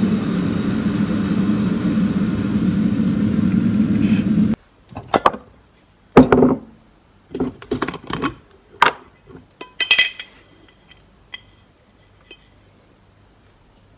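Steady loud noise that cuts off suddenly about four and a half seconds in, followed by a run of light clinks and knocks: a teaspoon clinking against a glass jar of instant coffee and scooping granules out over a ceramic mug.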